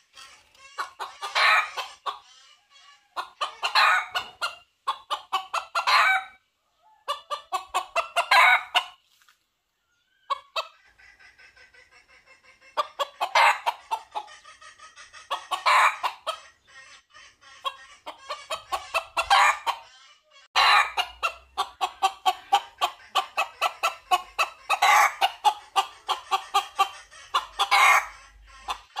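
Red junglefowl cock calling to a hen: bursts of rapid clucking, each a second or two long, coming every couple of seconds. A softer, steadier run of clucks comes about ten seconds in, and the bursts run almost together through the last third.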